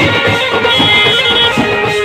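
Loud music with sustained melody notes over a steady beat.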